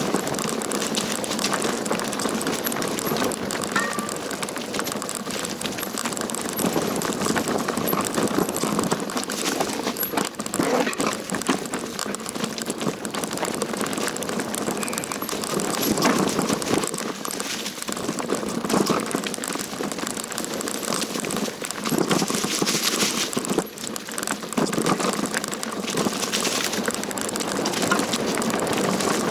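Mountain bike riding down a rough, rocky trail: tyres crunching over stones and branches, with the bike rattling and clattering without a break.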